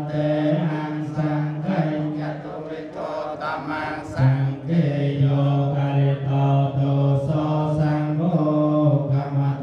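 A group of voices chanting a Khmer Theravada Buddhist chant in unison on long, steady held notes, with a brief break and a shift in pitch about four seconds in.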